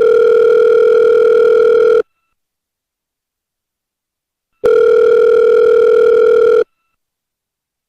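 Telephone ringback tone heard by a caller on an outgoing call: a steady tone sounding twice, each ring about two seconds long with a silent gap of about two and a half seconds between.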